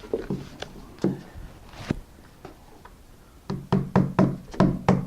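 Hammer driving roofing nails through roofing felt flashing: a few separate taps, then from about three and a half seconds in a quick, even run of strikes, about three to four a second.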